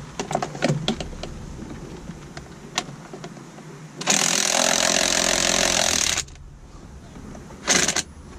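Cordless power driver running in one burst of about two seconds, then a brief second burst near the end. A few light clicks of parts being handled come first.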